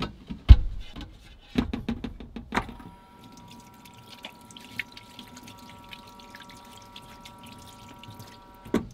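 A few knocks and clatter as food and packaging are handled, the loudest a thump about half a second in. From about three seconds in, a soft held chord of background music.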